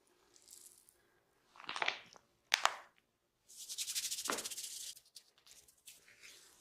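Close-up hand sounds of a head and neck massage, hands rubbing and scratching hair and skin: rustling strokes, a short sharp crack about two and a half seconds in, then a second-long rapid rasping rub.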